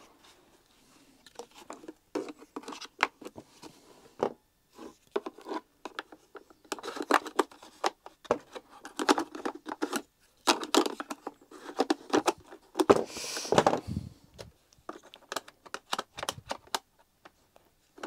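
Hard plastic vacuum cleaner housing being handled and pushed together on a wooden workbench: irregular clicks, knocks and short scrapes in bunches, with a longer scrape about two-thirds of the way through.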